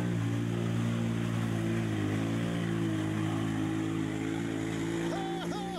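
A vehicle engine idling steadily, its pitch dipping slightly about two seconds in.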